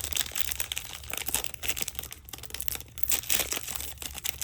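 Plastic cello-pack wrapper of football trading cards crinkling and crackling as it is handled, in quick irregular crackles.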